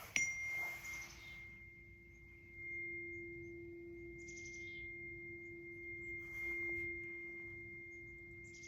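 Heart-chakra tuning fork tuned to F, struck once just after the start and then ringing with a single steady, pure tone and a faint high overtone, slowly dying away.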